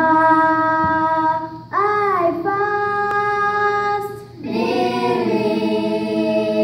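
Children's choir singing: a girl's solo voice through a handheld microphone holds long notes with a swooping slide in pitch, then more voices join about four and a half seconds in.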